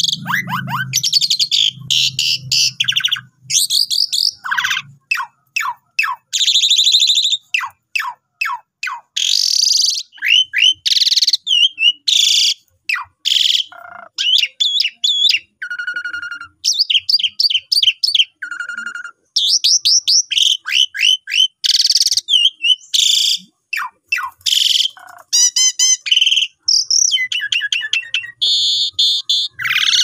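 Asian pied starling (jalak suren) singing a long, varied song: quick chirps, slurred whistles and short buzzy rattles in rapid phrases with brief pauses between them.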